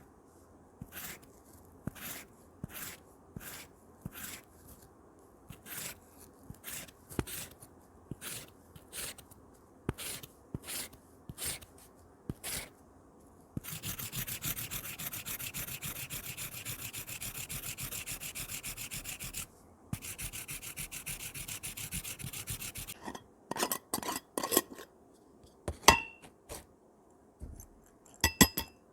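Paintbrush bristles rubbing over a surface: single slow strokes a little under a second apart, then several seconds of fast continuous scrubbing. Near the end come sharp clicks and clinks.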